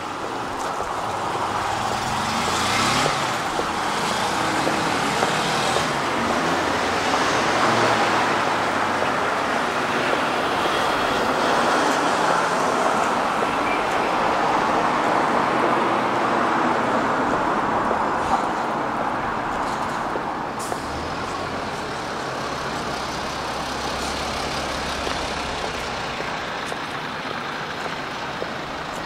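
Road traffic passing in a city street: a steady noise of engines and tyres that builds over the first few seconds and eases off about two-thirds of the way through. A low engine hum is heard near the end.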